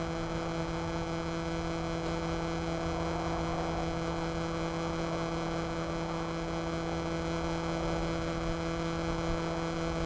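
Force1 F200C Specter quadcopter's brushless motors running in flight, a steady hum at one fixed pitch with overtones over a light hiss.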